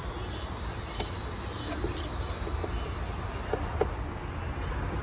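A screwdriver working the hose clamp on a plastic air-intake duct: a few light clicks and scrapes, about a second in and again near the end, over a steady low rumble.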